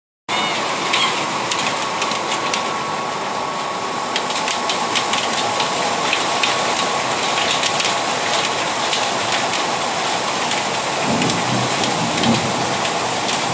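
Steady rain falling, with scattered sharp ticks of individual drops hitting a surface and a low rumble near the end.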